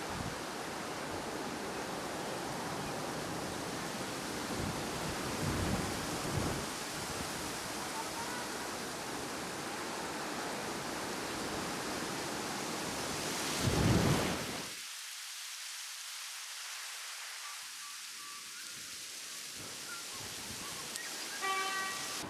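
Wind buffeting the microphone outdoors: a steady rushing noise that swells in a strong gust about fourteen seconds in, then thins out.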